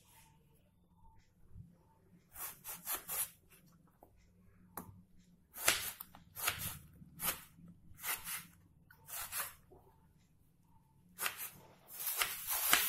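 Kitchen knife slicing through tomatoes and onto a plastic cutting board: short crisp cuts in small groups of a few strokes with pauses between, starting a couple of seconds in.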